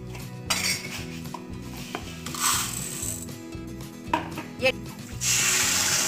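Water poured from a bowl onto a heap of sugar in a nonstick pan to start a sugar syrup: two light clinks, then a loud rushing pour near the end. Quiet background music runs underneath.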